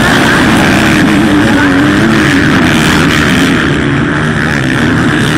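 Several small two-stroke motocross bikes running together on the track, engines rising and falling in pitch as they rev through the course in one continuous loud mix.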